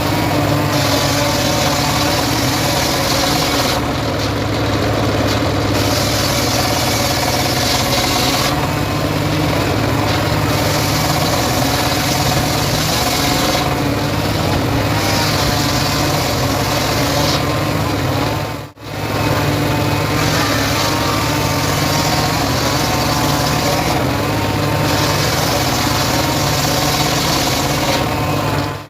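Homemade srekel log saw cutting sengon wood: its engine runs steadily while the cutting noise comes and goes in stretches of about three seconds at a time. The sound drops out briefly about two-thirds of the way in.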